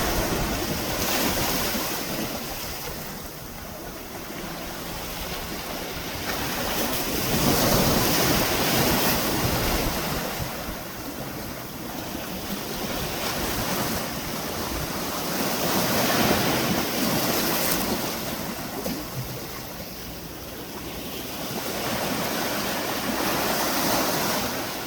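Sea waves washing against a breakwater: a continuous surging wash that swells and falls back, peaking roughly every eight seconds.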